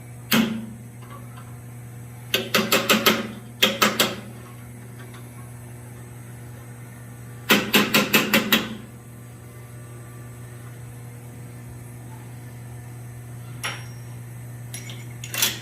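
Blacksmith's hammer tapping on hot steel while detailing a forged dragon head. The taps come in quick runs of three to six, with single taps between, over a steady low hum.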